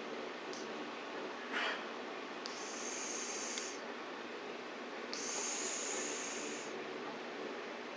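Chinchilla Persian cat snoring in its sleep: a short snort about one and a half seconds in, then two long, hissy breaths a couple of seconds apart.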